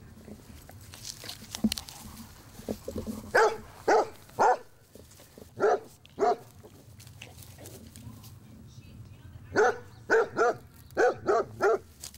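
A dog barking: a run of about five short barks, then after a pause a quicker run of about seven.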